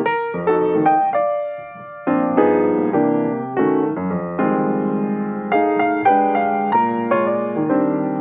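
Background piano music: chords and melody notes struck in a steady rhythm, with a brief lull about two seconds in.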